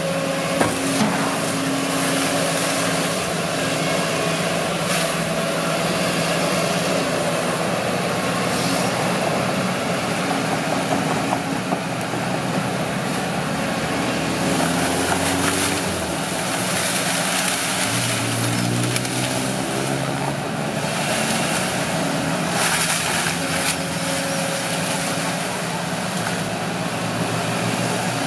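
Kobelco SK140 excavator's diesel engine running steadily under hydraulic load as the arm works. Its note dips and rises with the load in the middle. A few short crackles come about two-thirds of the way through.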